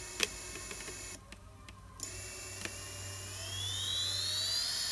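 Emax RS2205 2300kv brushless motors, driven by Kiss 24A ESCs, spinning with no propellers at low throttle and giving a high, smooth electric whine. It dips briefly about a second in, then rises in pitch from about three seconds in and holds.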